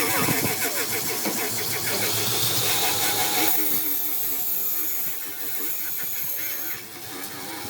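An engine running with a rapid, uneven beat, quieter near the end.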